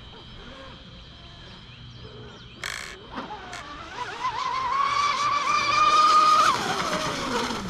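TFL Zonda radio-controlled electric speed boat at full throttle: a high whine that climbs slowly in pitch as it gets louder, peaks about six seconds in, then drops steeply in pitch as the boat passes and pulls away.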